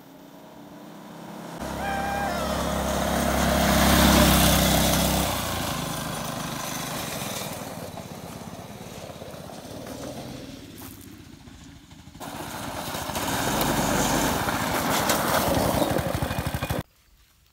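Go-kart's small engine running as the kart drives along a gravel road, with tires on gravel. It grows louder as the kart comes close and passes about four seconds in, then fades. About twelve seconds in it swells again and cuts off suddenly near the end.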